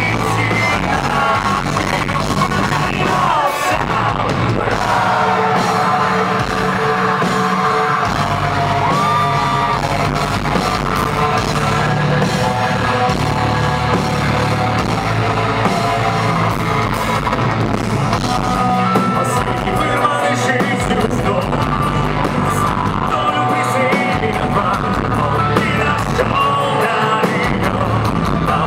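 Metalcore band playing live, with a male vocalist singing and yelling into a microphone over the full band.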